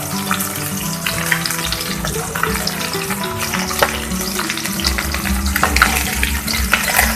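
Rohu fish pieces frying in hot oil in a kadai over medium heat: a steady sizzle with scattered crackles and pops. Background music plays underneath.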